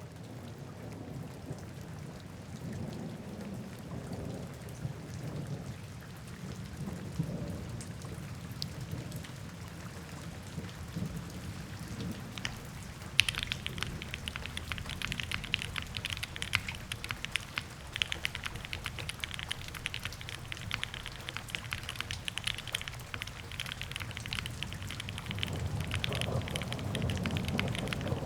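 Geon.works F1-8X custom mechanical keyboard with Gateron Black Ink V2 switches being typed on fast, a dense run of keystrokes like pattering rain. About halfway through, the clatter turns sharper and brighter.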